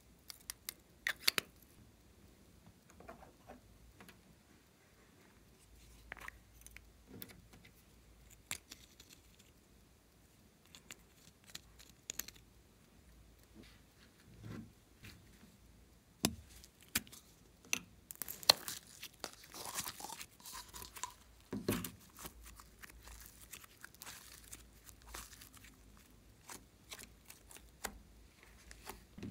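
Small handling noises from slime-making supplies: scattered clicks and taps of a plastic lip balm tube, and plastic crinkling and tearing. The crinkling and tearing is densest about two-thirds of the way through, when red slime is put into the bowl.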